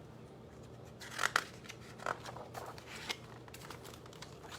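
Pages of a picture book being turned by hand: paper rustling and crinkling, loudest about a second in, with smaller rustles near two and three seconds.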